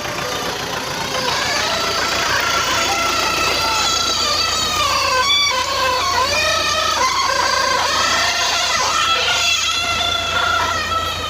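An engine running steadily, with wavering pitched sounds over it.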